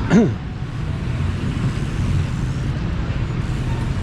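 Street traffic on a main city road: a steady rumble of passing vehicles.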